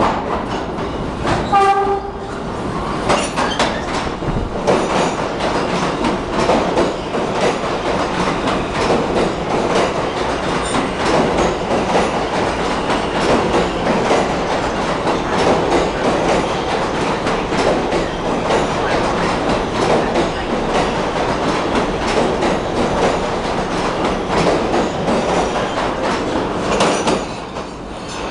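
R160 subway train running through a station without stopping. It gives a short horn blast about two seconds in as it approaches, then makes a loud steady rumble with rapid wheel clatter over the rail joints as the cars pass. The noise drops off near the end as the last car leaves.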